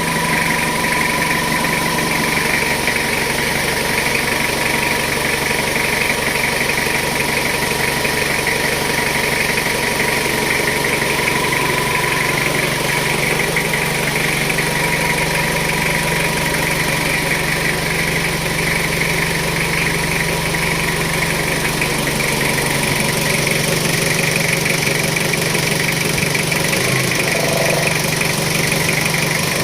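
Jeep Wrangler engine idling steadily, with an even hum and a thin steady whine and no starter cranking or grinding.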